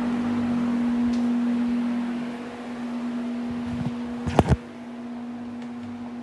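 A 60 cm, 200 W Arge Max electric fan running, with a steady motor hum and air noise. A few sharp clicks come about four and a half seconds in, after which the air noise is quieter while the hum continues.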